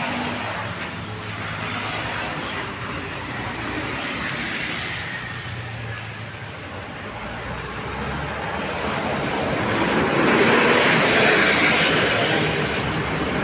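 Road traffic running past, a steady rush of engines and tyres that swells about ten seconds in as a vehicle goes by, then eases.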